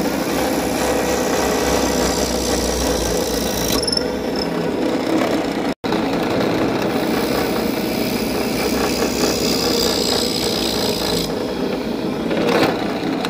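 Drill press running steadily while its twist bit bores holes through a wooden board, the bit cutting and throwing off shavings. The sound breaks off completely for a moment about six seconds in, then resumes.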